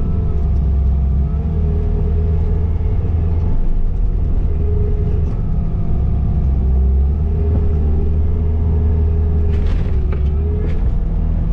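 Skid steer engine rumbling steadily under load while it pushes snow, with a whine that wavers up and down in pitch. A few knocks and scrapes come near the end.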